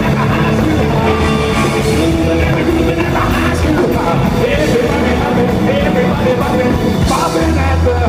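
Live rock and roll band playing loudly: electric guitars, bass guitar and a drum kit.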